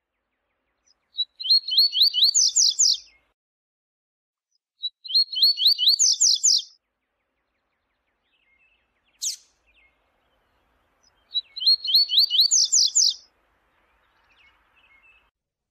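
Double-collared seedeater (coleiro) singing its 'viu-tiu' song: three phrases, each a rapid run of whistled notes that climbs to higher notes at its end, separated by pauses with short sharp chips between them.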